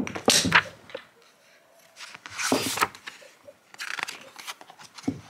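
Glossy pages of a book being turned and handled, with several short paper rustles and flaps.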